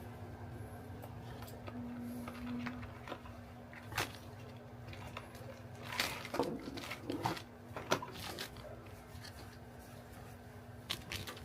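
Makeup packaging being handled: scattered light clicks and taps, with a cluster of clicks and rustling about two-thirds of the way through, over a faint steady hum.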